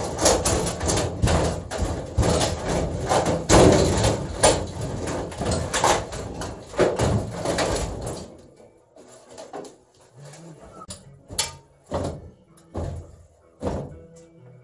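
Old gas furnace's sheet-metal cabinet scraping and grating across the floor as it is dragged out of place, with clanks and bangs of metal. From about eight seconds in, this gives way to separate knocks and thumps about once a second.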